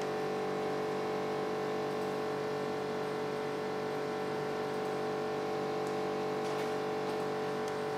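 Steady machine hum made of several steady tones over a faint hiss, unchanging throughout.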